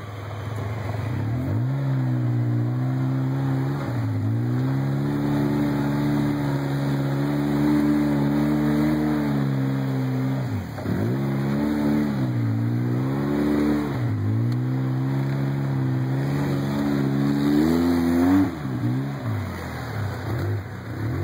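Polaris RZR side-by-side's engine pulling along a dirt trail, its revs climbing and holding steady, then dropping off and picking back up several times, about four, eleven, fourteen and eighteen seconds in.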